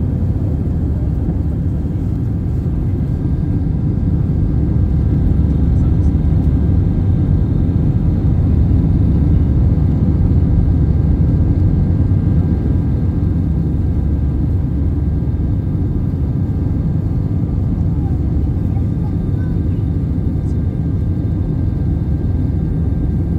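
Cabin noise of an Airbus A319-111 climbing out after takeoff, heard from a window seat over the wing. Its CFM56 turbofan engines and the rushing air make a steady low rumble with faint steady whining tones above it, swelling slightly for a few seconds in the middle.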